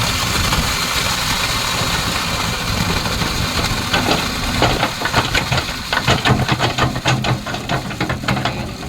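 Kobelco excavator's diesel engine running steadily. From about four seconds in, a quick run of sharp metallic clanks and knocks joins it.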